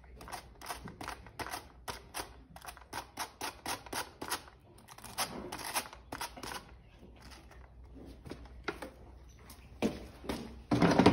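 A metal grooming tool scraped repeatedly through the bristles of a horse brush to clear out shed hair: a quick run of short scratchy strokes, a few a second, thinning out later, with a louder knock and shuffle near the end.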